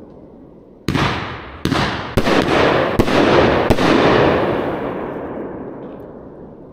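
Consumer firework cake, an Elite Fireworks Renegade Cowboys 15-shot 500-gram angled cake, firing: five sharp reports of its shots and breaks come in quick, uneven succession starting about a second in, then the noise of the bursts dies away slowly over the next few seconds.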